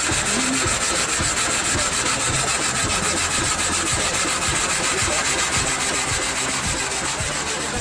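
A saw cutting through wood, a steady sawing noise with a rapid, even rhythm that starts abruptly.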